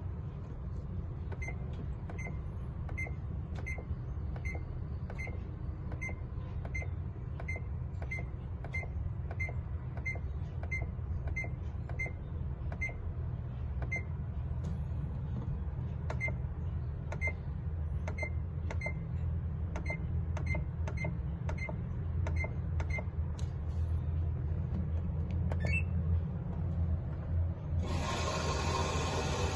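Washing machine running: a steady low hum with a regular click about every two-thirds of a second. About two seconds before the end, a loud even hiss sets in suddenly.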